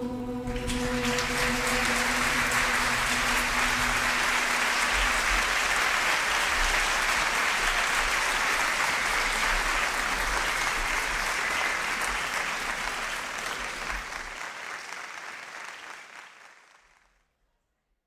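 A choir and orchestra's final held chord gives way, less than a second in, to a large audience applauding steadily; the applause fades out near the end.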